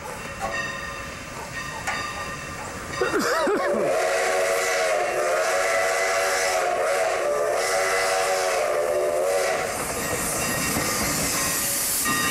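Steam whistle of Sierra Railway No. 28, a Baldwin steam locomotive, blowing one long blast of about six seconds for a road grade crossing, its pitch swooping up as it opens about three seconds in. Train noise runs beneath it before and after the blast.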